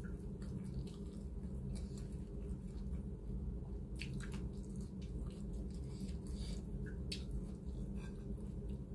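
Eating rice by hand: scattered soft, wet clicks of chewing and of fingers working the rice on the plate, over a steady low hum.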